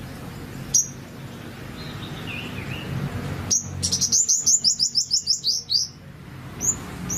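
Purple sunbird calling: a single sharp high call about a second in, then a fast run of about a dozen high chirps, roughly six a second, lasting around two seconds, and one more call near the end.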